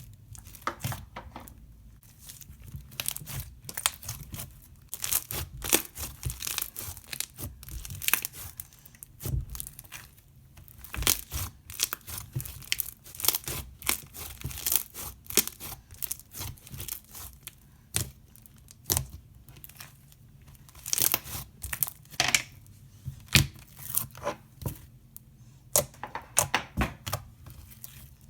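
Slime being stretched, squished and poked by hand, giving sticky crackling, clicking and tearing sounds in irregular flurries with short pauses between.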